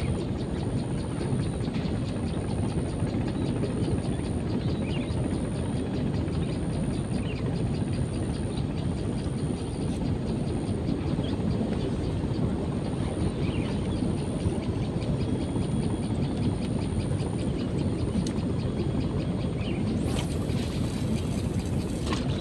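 Steady low rushing outdoor noise at an even level, with a faint high-pitched trill repeating in short pulses throughout and a brief high hiss near the end.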